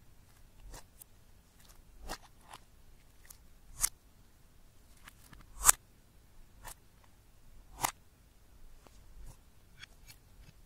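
Hands pressing and squishing clear slime, giving scattered sharp pops and clicks as trapped air bursts out of it. The loudest pop comes a little past halfway.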